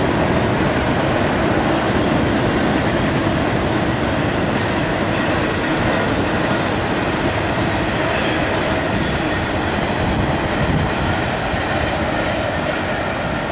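CSX freight train rolling past, its wheels running steadily on the rails with a continuous rumble and some clickety-clack, growing slightly fainter near the end.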